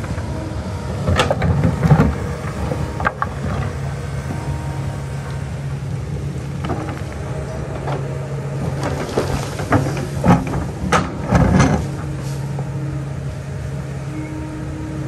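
Kobelco excavator's diesel engine running steadily as it works, with scattered metallic knocks and clanks from the machine: a few in the first three seconds and a tight cluster about two-thirds of the way through.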